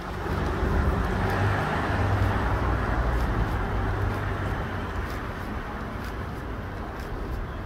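A road vehicle driving past, its engine and tyre noise swelling about half a second in, loudest over the next couple of seconds, then slowly fading.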